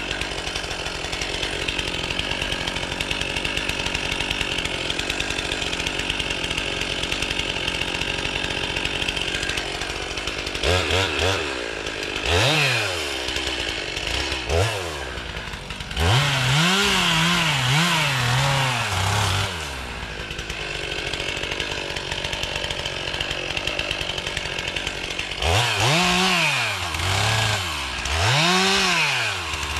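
Two-stroke chainsaw running steadily at idle. About a third of the way in it is revved up and down in repeated swells, the engine pitch rising and falling as it cuts brush.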